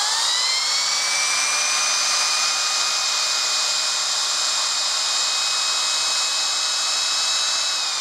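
Zhenjing C2 bagless cyclone vacuum cleaner running with its air-driven turbo brush head, a steady high, many-toned whine from the motor and the airflow-spun roller. Near the end the whine starts to drop in pitch as it winds down.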